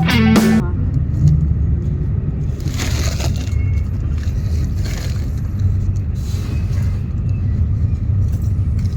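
Steady low rumble of a moving vehicle, with faint road hiss rising and falling, after guitar music cuts off about half a second in.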